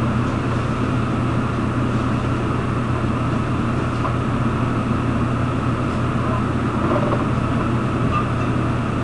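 Steady low hum with an even hiss that does not change, like a machine running constantly.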